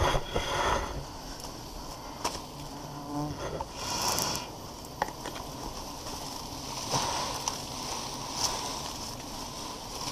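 Honeybees buzzing in numbers around their wild nest as it is smoked for a honey harvest, with rustling and handling noises rising and falling several times.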